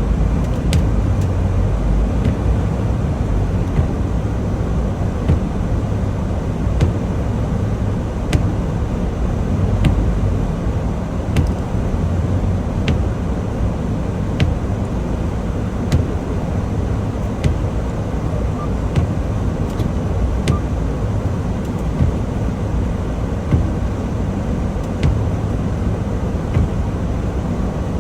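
Semi-truck running down the road, heard from inside the cab: a steady low engine and road rumble, with a sharp click repeating about every second and a half.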